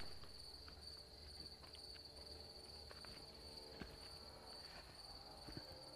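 Faint, steady chirring of crickets; otherwise near silence.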